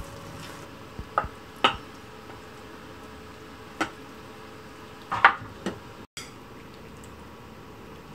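Silicone spatula knocking and scraping in a nonstick frying pan as tomato-and-egg beef stew is turned out onto a ceramic plate. About five sharp knocks of pan and utensil against the dishes come over a faint steady hiss, the loudest a little past five seconds in.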